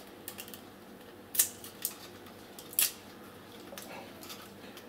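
Light clicks and taps of a MagSafe 1 power adapter's opened plastic housing and thin metal shielding being handled, with two sharper clicks, one about a second and a half in and one near three seconds.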